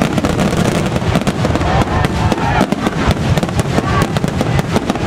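Fireworks barrage: a dense, unbroken run of mortar launches and shell bursts, many bangs a second mixed with crackling.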